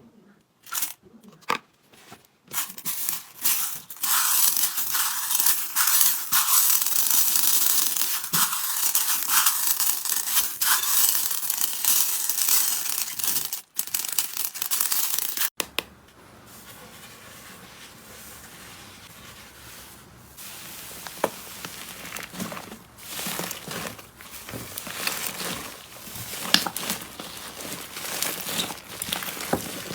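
Slime being handled with dense crackling and crinkling. The sound breaks off suddenly about halfway through and gives way to a quieter stretch of sparser crackles over a low hum.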